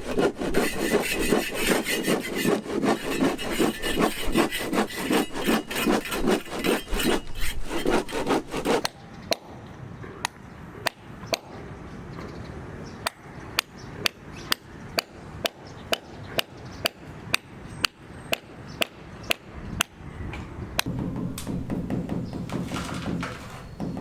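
Wood being sawn by hand in quick, rhythmic strokes for about nine seconds, then a run of sharp, evenly spaced taps, about two a second, that stop near the end.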